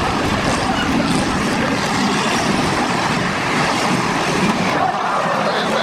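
Demolition derby cars' engines running loudly in the arena, mixed with wind buffeting the microphone.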